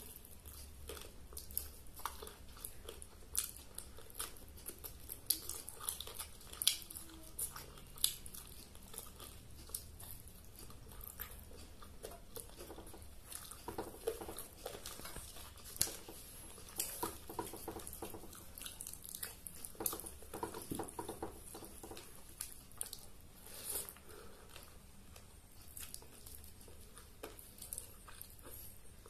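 Close-up eating sounds of a person eating with their hand: chewing and biting into chicken, with many short, irregular clicks throughout.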